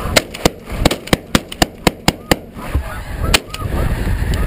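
A rapid volley of shotgun shots, about ten blasts in the first two and a half seconds and one more a second later, too fast for one gun, so several hunters are firing. A large flock of snow geese honks throughout, loudest after the shooting stops.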